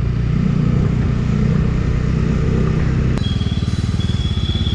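Bajaj Dominar 250's single-cylinder engine running as the bike rides along. About three seconds in, its note changes to a slower, pulsing beat as the bike slows down. A thin, high steady tone starts in the background at the same moment.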